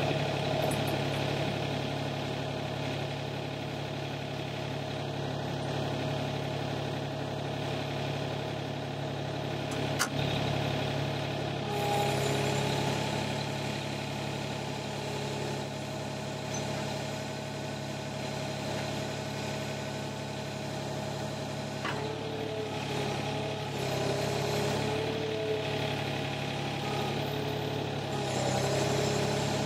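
Sany SY35U mini excavator's diesel engine running steadily while its hydraulics lift a load, with a whine setting in about twelve seconds in and wavering again in the second half as the arm is worked. A single sharp knock about a third of the way through.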